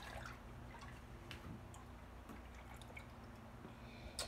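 Quiet kitchen room tone with a low steady hum, broken by a few faint ticks and a sharper click near the end.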